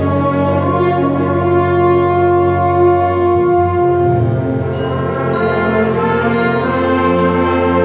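Middle school concert band playing long, held chords of brass and woodwinds, changing chord about three seconds in and again near the end.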